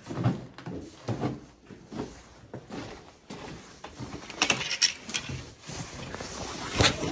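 Footsteps and body movement over debris, with clothing and handling noise rubbing on the phone's microphone: uneven scuffs and knocks, a cluster of sharp clicks about four to five seconds in, and a louder knock near the end.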